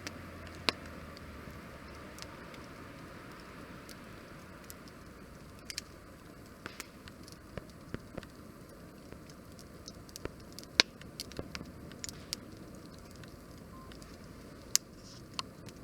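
Wood fire crackling: scattered sharp pops and snaps over a low steady hiss, coming more often in the second half, with the loudest pop about eleven seconds in.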